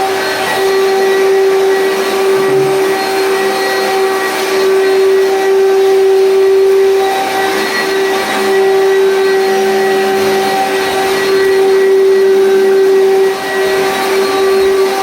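Commercial vacuum cleaner running, a steady motor whine over rushing air, with a brief dip in loudness about two seconds before the end.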